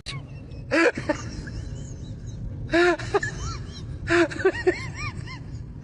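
An animal calling in three short groups of rising-and-falling cries, about a second and a half apart, over a steady low rumble.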